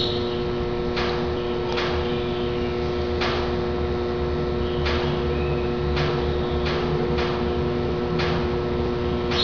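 Steady electrical hum of several fixed tones over a low rumble, with faint, scattered light clicks about once a second.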